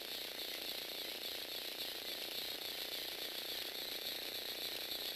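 Lego Technic Power Functions motor driving a plastic gear train and walking legs, giving a steady high-pitched whirring with a light, even gear rattle.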